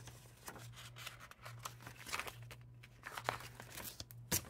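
Paper planner inserts rustling and sliding as they are handled and turned on the binder rings, faint and scattered, with a sharper click near the end.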